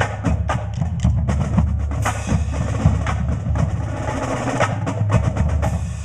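Drums and percussion played in fast, dense strokes, with snare-like and wood-block-like hits over a low drum, thinning out at the very end.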